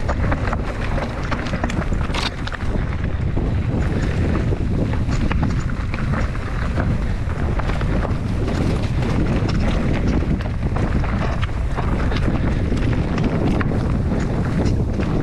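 Enduro mountain bike descending a stony trail at speed: tyres rolling and skipping over rocks, with a constant patter of small knocks and rattles from the bike, under heavy wind rumble on the microphone.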